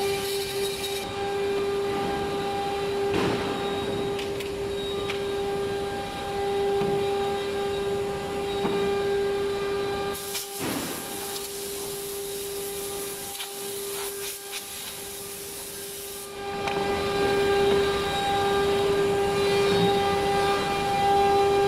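CNC router spindle whining steadily at one high pitch while the bit cuts wood, with a hiss of cutting noise that changes abruptly twice.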